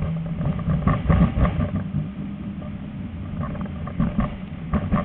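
Tram running along its track with a low rumble, its wheels knocking and clattering over rail joints and points in a cluster about a second in and again near the end; a steady motor hum fades out in the first two seconds.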